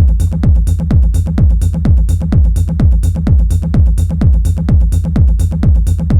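Dark techno track: a steady four-on-the-floor kick drum at about two beats a second, each kick falling in pitch, with hi-hat strokes between the kicks over a steady low bass line.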